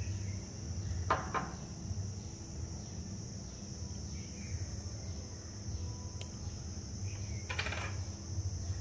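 Light clicks and knocks of a small plastic pigment jar and its screw lid being handled and set down on a table: a pair of sharp clicks about a second in and another short rattle near the end. Under them a steady high-pitched whine and low hum carry on.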